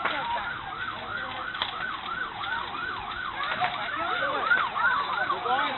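Emergency vehicle sirens wailing in a fast yelp, about three rising-and-falling sweeps a second; a second, lower-pitched siren joins about two-thirds of the way in, as more units approach.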